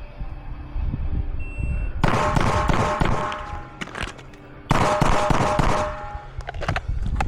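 A short high shot-timer beep, then rapid strings of gunshots: one starting about two seconds in, a brief pause, and another starting near five seconds.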